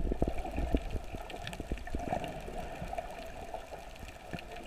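Underwater sound picked up through a GoPro's waterproof housing: a muffled rumble of moving water with many scattered clicks and crackles.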